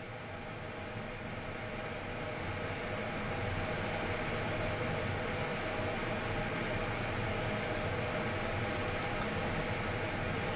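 Motorized stage drive of an EMS 7000smz2 vibrating microtome running steadily as it lowers the stage to the load position, with a constant high whine over the motor noise. It grows a little louder over the first few seconds, then holds steady.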